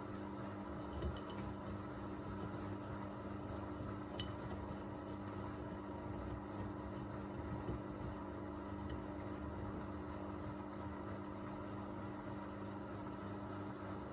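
Miele Navitronic W3985 WPS washing machine running in its Express 40° programme: a steady hum with a few faint ticks and drips.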